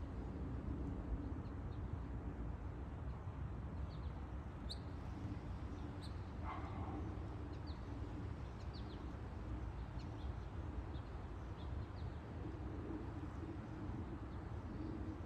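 Small birds chirping in short, high calls over a steady low rumble, with a dog barking once about six and a half seconds in.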